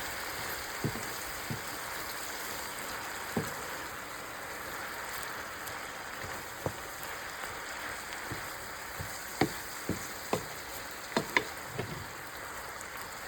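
Spinach, green apple, garlic and onion sautéing in olive oil in a pan over medium heat, with a steady sizzle. Scattered sharp clicks sound over it, coming more often in the second half.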